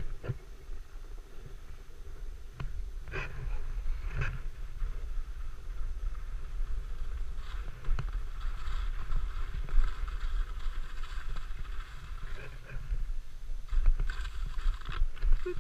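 Skis sliding and scraping over snow, with a steady low wind rumble on the microphone and a few sharp clicks.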